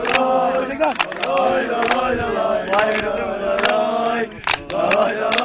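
A group of male football supporters chanting in unison, a sung terrace melody, with hand claps through it.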